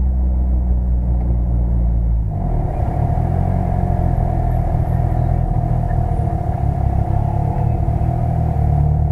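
Tuned Mitsubishi Lancer Evolution VI Tommi Mäkinen Edition's turbocharged four-cylinder engine running at fairly steady revs; the engine note shifts about two seconds in, after which a steady higher whine runs with it.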